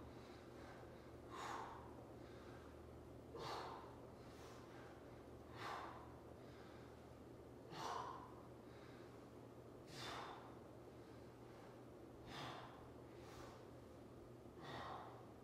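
A man breathing hard with exertion: a short, sharp exhale about every two seconds, seven in all, over a faint steady room hum.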